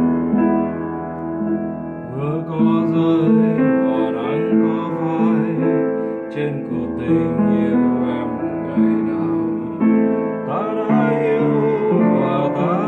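Piano played with both hands in a slow ballad accompaniment, with a man's voice singing the melody over it from about two seconds in.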